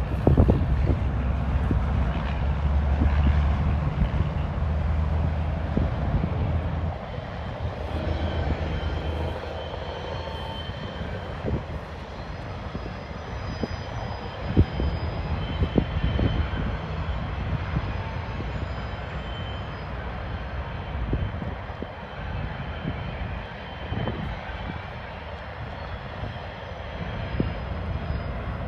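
Two EMD GP-series two-stroke diesel switch locomotives running, a low engine drone that is strongest for the first several seconds and then fades as they move away. Wind buffets the microphone with occasional knocks.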